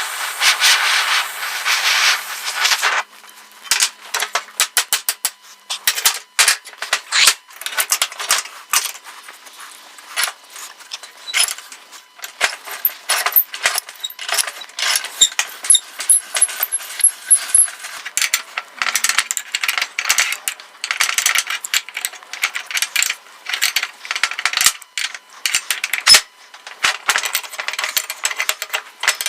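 Steel parts of a rusted post vise being worked and taken apart: a steady hiss for about the first three seconds, then a long run of irregular sharp metal clicks, clinks and knocks.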